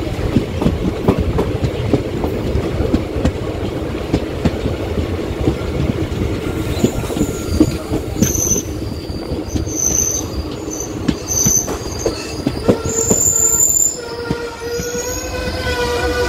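Passenger train running on the track: a steady rumble with a dense clatter of wheel clicks, and from about halfway, short high-pitched wheel squeals. Near the end a held, pitched tone with several overtones comes in.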